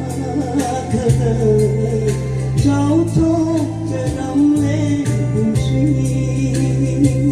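A song with a singing voice over held bass notes and a steady beat.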